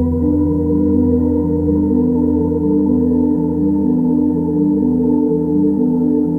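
Background music: sustained organ-like keyboard chords, with lower notes changing about once a second.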